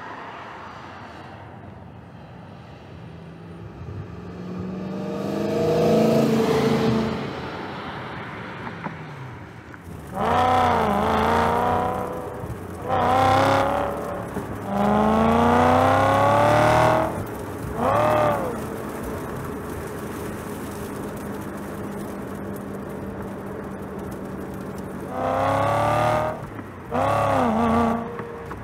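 BMW M3 Pickup's 4.0-litre V8 driven hard. Its sound swells to a pass about six seconds in, then comes in repeated short bursts of revving, some climbing steadily in pitch and some blipped up and straight back down. A steady lower engine note runs between the bursts.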